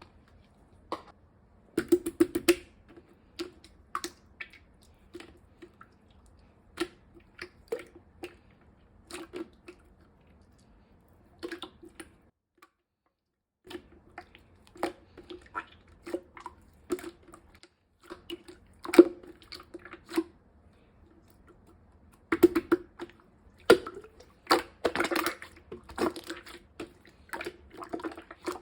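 Black slime marbled with gold pearl being squished and pressed by hand, making irregular sticky clicks and small pops in quick clusters, with a short pause about halfway through.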